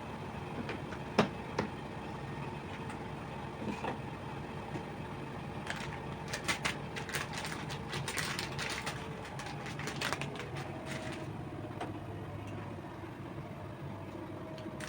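Light clicks and taps of kitchen items being handled and set down over a steady low hum. A few single clicks come early, then a quick run of clicks and taps in the middle.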